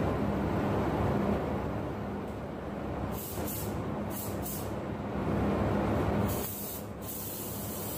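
Steady drone of a paint spray booth's ventilation, with a gravity-feed spray gun hissing in short bursts of compressed air as its trigger is pulled: four quick bursts about three seconds in, then a longer one just after six seconds.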